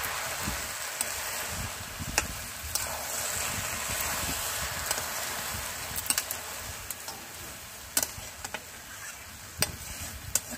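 Water spinach and fish heads frying in a pan with a steady sizzle, just thickened with a flour-and-water paste, while a spatula stirs them and clicks against the pan every second or two.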